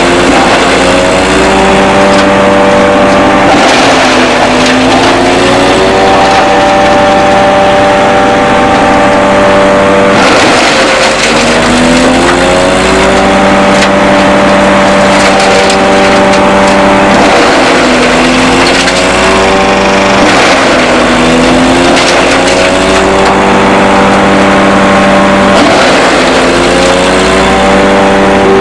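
Starke 38 HP coconut husk shredder running. Its engine holds a steady note, and about six times it lugs down with a burst of shredding noise as a load of husks goes through, then winds back up to speed.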